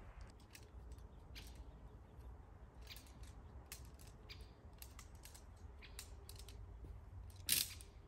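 Tent and camping gear being handled during setup on leaf litter: scattered small clicks and ticks, with one louder brief rustle near the end, over a low steady rumble.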